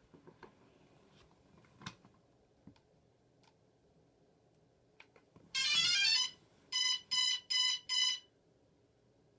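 DJI Phantom 2 quadcopter's electronics beeping as it is powered up: a quick run of tones followed by four short, evenly spaced beeps, with a few light clicks beforehand. The motors do not spin up.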